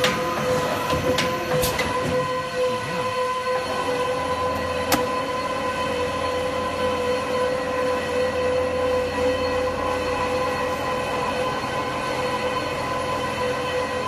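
Frozen meat slicing machine (CD455) running steadily: a constant machine whine and hum from its drive. A single sharp click about five seconds in.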